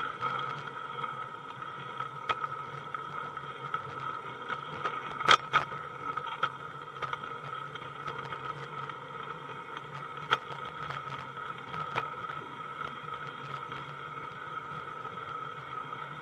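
Small metal wheels of a 16mm-scale garden-railway tipper wagon rolling steadily along the track, with a constant running whine and sharp clicks every so often, two close together about five seconds in.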